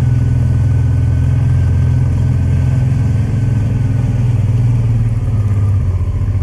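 1996 Honda Transalp's 583 cc V-twin engine running steadily at low revs as the motorcycle rolls slowly along.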